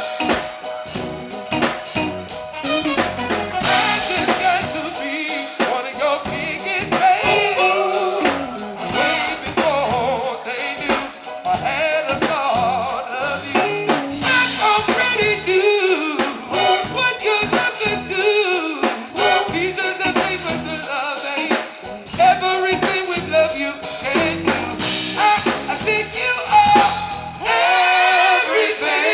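Live band music: a woman singing over a drum kit and band.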